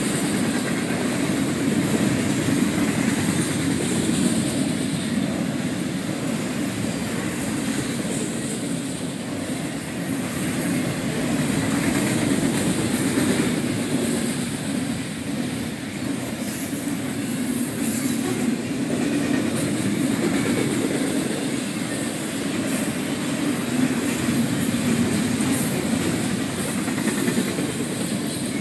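Double-stack container cars of a Union Pacific freight train rolling past: a steady rumble of steel wheels on the rails that swells and eases slightly as the cars go by.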